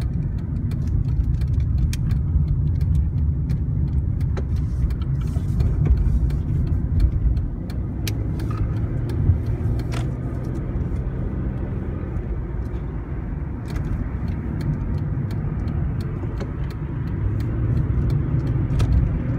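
Steady low road and engine rumble of a moving car heard from inside its cabin, with scattered sharp clicks and small rattles throughout.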